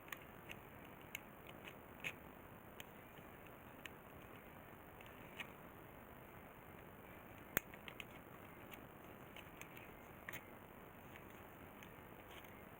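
Scattered faint clicks and scrapes of a ceramic knife worked against a circuit board, over a steady low hiss, with one sharper click about seven and a half seconds in.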